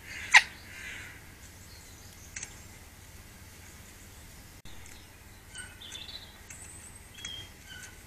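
Magpie at a wire-mesh mealworm feeder: one sharp knock about a third of a second in, likely its bill striking the metal mesh. Later come a few faint, short chirps of small birds.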